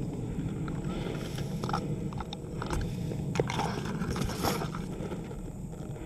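Dry grass and reeds rustling and crunching as a person shifts through them, with a scatter of short sharp clicks and snaps between about a second and a half and four and a half seconds in. Under it sits a steady low wind rumble on the microphone.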